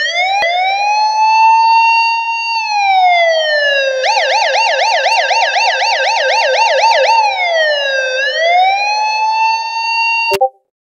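Loud electronic police car siren. It rises into a held wail, falls, then switches to a fast yelp of about four warbles a second, swoops down and back up into a held wail, and cuts off suddenly near the end.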